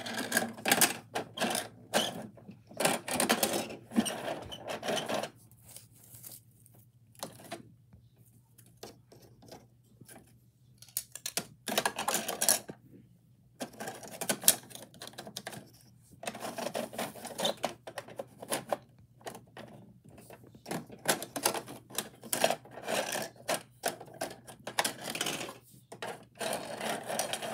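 Small plastic pieces clicking and clattering against the plastic rear hopper of a Bruder toy garbage truck as they are handled and dropped in, in irregular bursts with a few quiet pauses. A faint steady low hum runs underneath.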